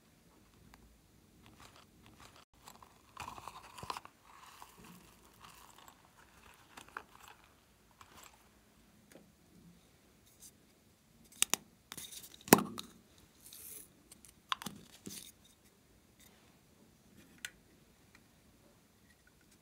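Hands handling plastic slime-topping containers and a toy over a glass dish, with toppings shaken out: scattered soft clicks, taps and rustles. A cluster of sharper clicks comes a little past the middle.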